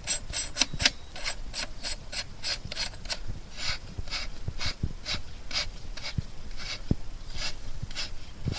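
Socket ratchet clicking in repeated rasping strokes as the rear axle nut of a Ducati S2R is tightened down: quick in the first second, then about two strokes a second.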